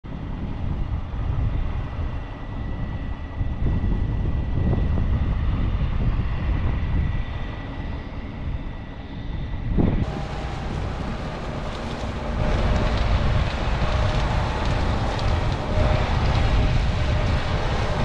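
Heavy harvest machinery running with a dense low rumble. A thin steady whine sits over it at first; about ten seconds in the sound changes abruptly to a different take of the machinery.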